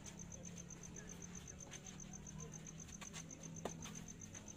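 Crickets chirping in a steady, fast high pulse, with a single sharp pop of a tennis ball struck by a racket about three and a half seconds in. A couple of fainter clicks come just before the pop.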